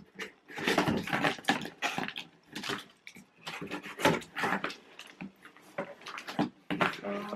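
Packing tape on a cardboard box being slit with a blade and torn, with scraping and rustling of the cardboard as the box is handled and turned over; the sounds come in irregular, uneven bursts.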